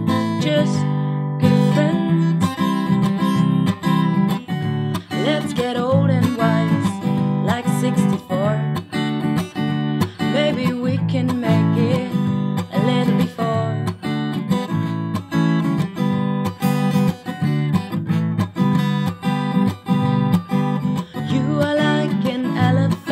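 A woman singing while strumming a black cutaway Fender acoustic guitar in a steady rhythm.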